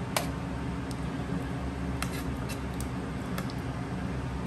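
A few light clicks and taps of kitchen utensils against a serving dish and granite countertop, the sharpest just after the start, over a steady low room hum.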